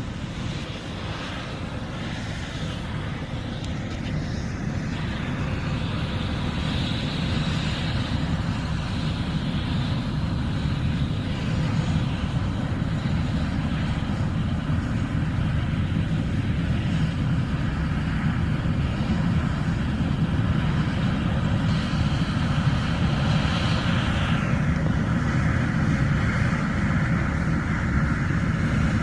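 John Deere S780 combine running as it harvests corn, a steady engine and machinery drone that grows louder over the first dozen seconds as it draws nearer. Near the end a high whine in the sound drops lower.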